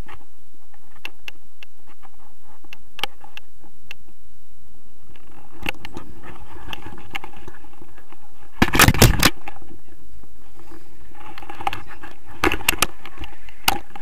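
Wind buffeting an action camera's microphone in flight under a paraglider, with scattered clicks and scrapes from the camera and its pole knocking against the harness, and a cluster of loud knocks about nine seconds in and again near the end.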